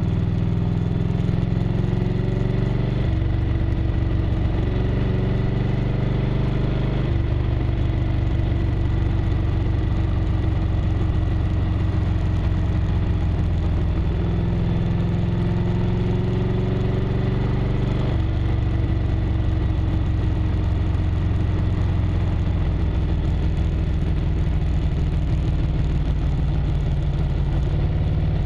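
A 1998 Harley-Davidson Road Glide's Evolution V-twin engine running on the move. Its pitch climbs and then drops abruptly about three times, as the bike goes through gears and throttle changes on the curves.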